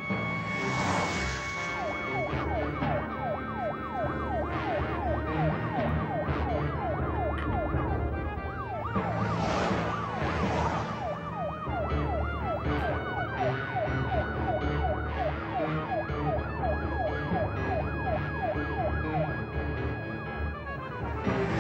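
Police car siren yelping in a fast rise and fall, about two cycles a second, over the low rumble of car engines. Swells of rushing noise come about a second in, around ten seconds in and again at the end.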